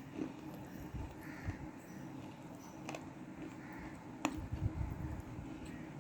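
Person chewing pieces of black cement slate close to the microphone: quiet chewing with two sharp crunches, about three seconds in and again just after four seconds.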